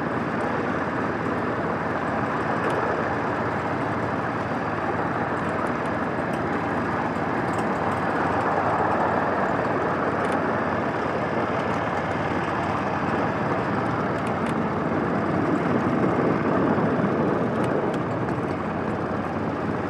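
A 7.5-inch gauge ridable miniature train running along its track, heard from aboard: a steady, even rolling noise with a few faint ticks.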